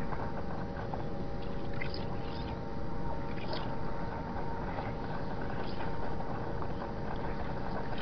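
Seismometer recording of ground vibration, sped up 120 times, so that the steady vibration of large waterworks pumps becomes a chord of held hum tones. The tones sit over a continuous rumble of ground noise, and a few brief swishing sounds come and go high above.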